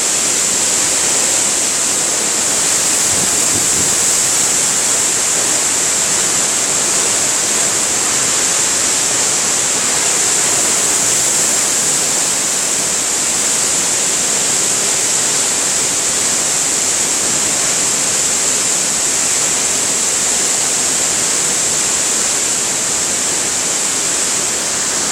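Waterfall: a steady, loud rush of falling water with a strong high hiss.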